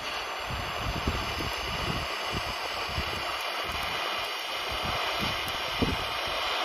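Steady hiss of a TIG (argon) welding arc on a stainless steel pipe joint.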